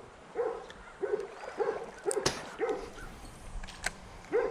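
Short, repeated animal calls, each rising then falling in pitch, coming about every half second, with a sharp click about two seconds in.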